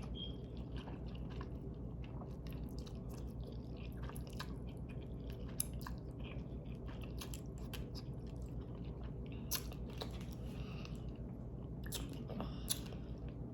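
A person chewing a big mouthful of spicy instant ramen noodles close to the microphone: a long run of small, irregular wet clicks and smacks.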